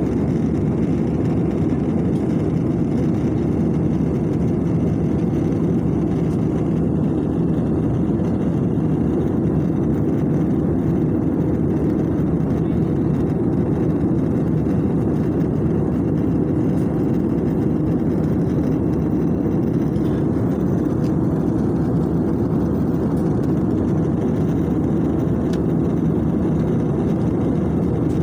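Steady low cabin drone of an Airbus A320-family jet airliner in cruise: engine and airflow noise heard inside the passenger cabin, even and unchanging throughout.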